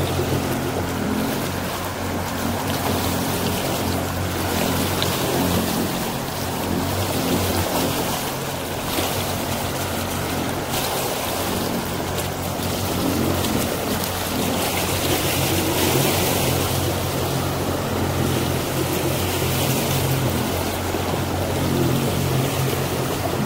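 Motorboat engine running steadily under way, its low hum under a continuous rush of water and wind buffeting the microphone in gusts.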